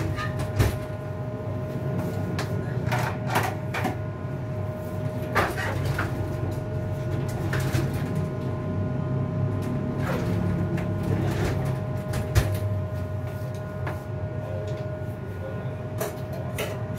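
Kitchen work sounds: a steady hum with a constant tone, broken by scattered short clinks and knocks of cookware and utensils being handled.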